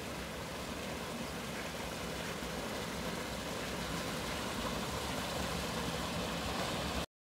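Spring water pouring from mossy rocks in a small cascade into a pool: a steady rush of falling water. It cuts off suddenly near the end.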